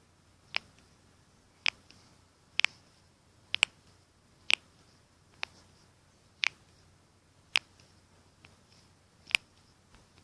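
Human knuckles being cracked one after another: about ten sharp pops, roughly one a second and irregular, some coming in quick pairs.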